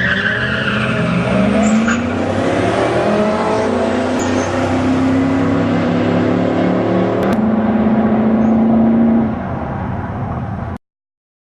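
A 2004 Ford Lightning's supercharged V8 with aftermarket exhaust accelerating hard, its pitch climbing in steps through the gear shifts, then holding steady before easing off. A high squeal fades away in the first two seconds, and the sound cuts off abruptly near the end.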